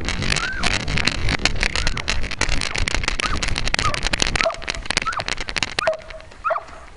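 Dense rustling and scraping of feathers against a camera mounted on a peregrine falcon's back as the falcon moves its wings, with short rising-and-falling bird calls over it. The rustling dies down about a second before the end.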